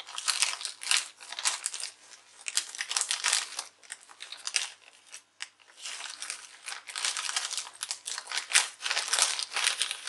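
Plastic poly mailer bag crinkling as it is cut open along its edge with scissors: irregular crackling snips and rustles, with a short lull about halfway through.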